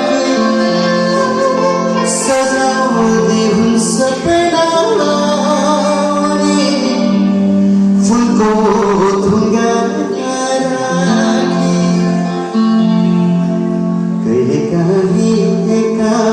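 A live band playing a Nepali song: a wavering melody line over sustained chords, at a steady level throughout.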